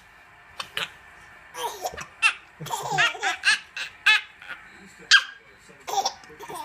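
A small girl with the hiccups laughing in short bursts, the laughter broken by sharp hiccups. Its high squeaky yelps sound like a little puppy.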